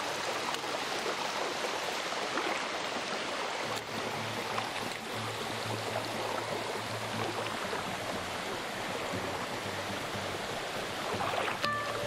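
Steady rushing of flowing water, with soft background music faintly underneath.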